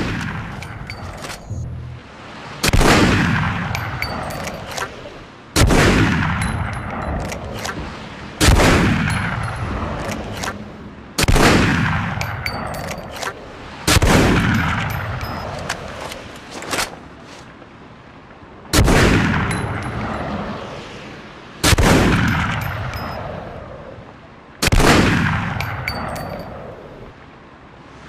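Barrett M95 .50 BMG bolt-action sniper rifle fired as single shots about every three seconds, with a longer pause partway through. Each shot is a sharp crack whose echo rings out and fades over a couple of seconds, with faint clicks between some shots.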